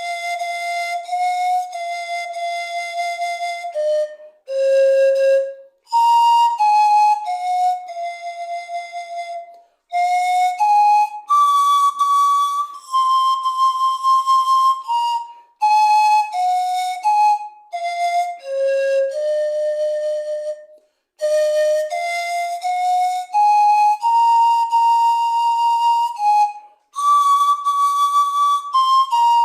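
Solo pan flute playing a slow melody one note at a time, with some notes held for a second or more and short pauses between phrases.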